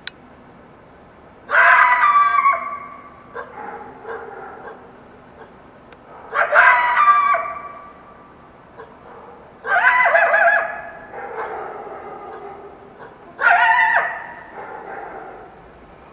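Wild coyote yelping four times a few seconds apart, each call a loud wavering cry about a second long that fades away over the next second or two.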